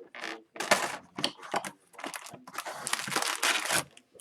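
Packaging of a sealed retail box of hockey cards crinkling and tearing as it is opened, in irregular rustles with a long stretch of crackling from about two seconds in.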